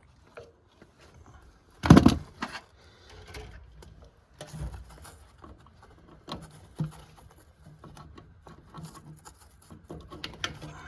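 Handling noises from mounting an electrical box: one loud knock about two seconds in, then scattered small clicks and taps of the box, screws and tools.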